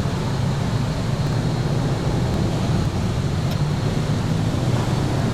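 Steady low rumble and hiss of outdoor background noise, with a constant low hum like passing traffic or a running engine.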